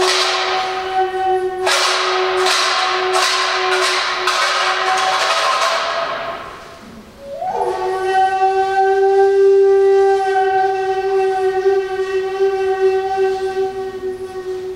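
Experimental improvised music: a saxophone holds a long note while harsh hissing noise bursts from the electronics pulse over it for the first six seconds. After a brief dip, a new note slides up about seven and a half seconds in and is held steadily.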